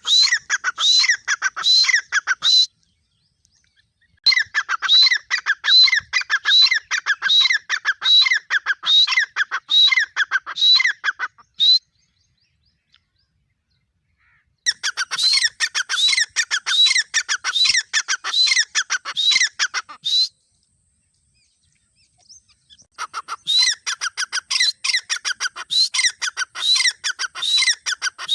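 Female grey francolin (teetar) calling: a steady series of short rising notes, about one and a half a second, in runs of several seconds broken by short silences.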